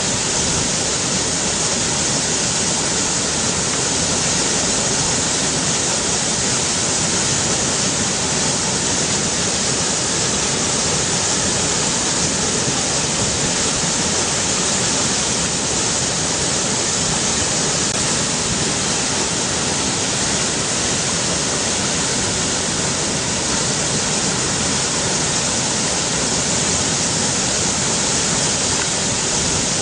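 River water rushing in a steady, unbroken hiss, strongest in the high range and without pauses or changes.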